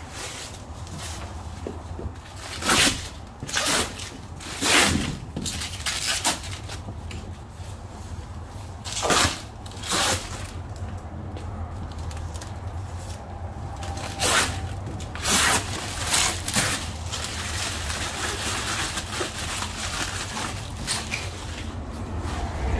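An old paper sign being pulled off a wall: a string of short tearing, scraping noises, about nine in loose groups, over a steady low hum.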